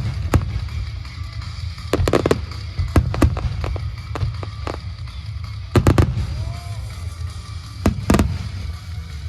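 Aerial firework shells bursting: sharp bangs, some in quick clusters of three or four, over a steady low rumble.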